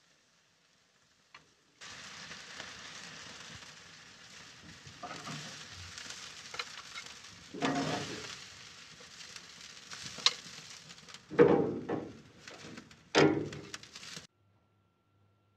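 BBQ-sauced pork ribs sizzling on a smoker's grill grate, with metal tongs clacking and scraping against the grate several times as the ribs are handled. The sizzle starts about two seconds in and cuts off abruptly near the end.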